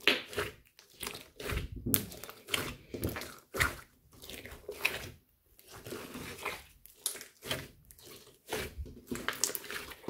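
Hands squeezing and kneading a large lump of mixed slime: quick, irregular squishes full of sharp little clicks and pops as air trapped in the slime bursts.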